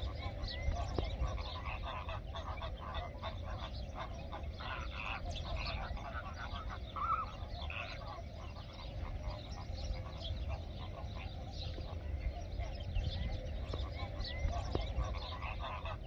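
A flock of flamingos calling: many short, overlapping goose-like honks and gabbling notes, over a steady low rumble.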